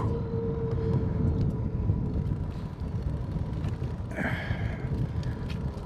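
Steady low wind rumble on a phone's microphone from riding a bicycle, with a faint hum and a few light clicks.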